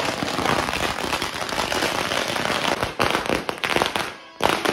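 A string of firecrackers going off in a rapid crackle of many small bangs. After about three seconds it thins out into separate, louder bangs with short gaps between them.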